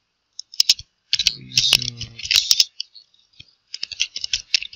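Typing on a computer keyboard: quick runs of key clicks in three bursts, with a pause in the typing around three seconds in. A brief voice murmur sounds under the second burst.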